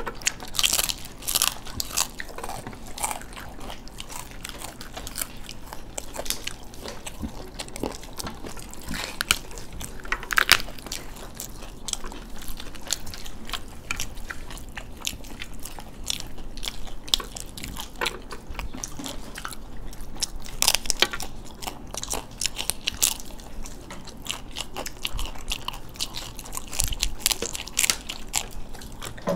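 Raj kachori being eaten by several people at once: the crisp fried shells crack and crunch in many irregular bites, mixed with close-up chewing.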